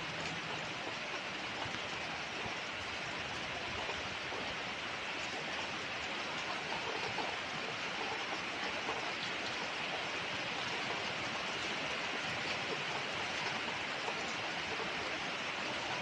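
Steady rain falling on a wet paved road, grass and trees: an even, constant hiss of drops with small pattering ticks.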